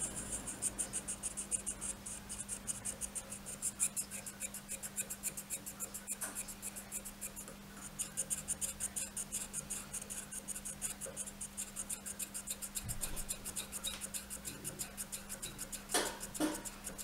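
Hand graver scraping a small metal workpiece in quick short strokes, about five a second, with a brief pause about halfway and a sharper knock near the end.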